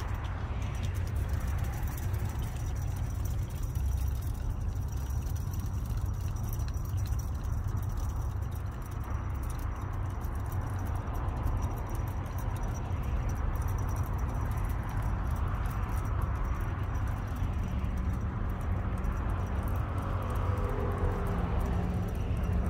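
Steady low outdoor rumble with faint light rattling over it.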